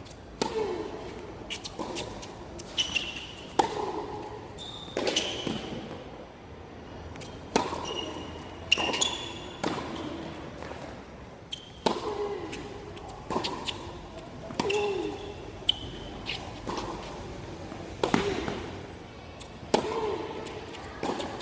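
Tennis rally on a hard court: repeated sharp pops of racket strings hitting the ball and the ball bouncing on the court, coming irregularly every second or two.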